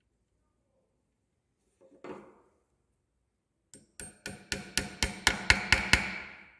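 Quick light hammer taps, about five a second, tapping a small metal pin into the arm of a Kingstar KS8700 industrial sewing machine head. The taps are sharp and metallic with a short ring after each, growing louder, after a single soft knock about two seconds in.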